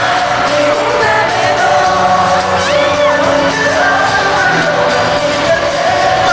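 Live pop music with singing, amplified in a large arena, with a crowd of fans screaming over it, including a few high sliding shrieks near the middle.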